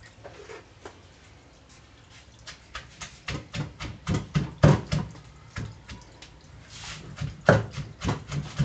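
Wooden pestle pounding boiled chilies and aromatics in an earthenware mortar: a steady series of dull thuds at about three a second, starting a couple of seconds in.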